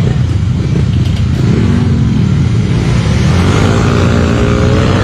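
Several motorcycle engines running together at a race start, their pitch rising from about three seconds in as the bikes accelerate away.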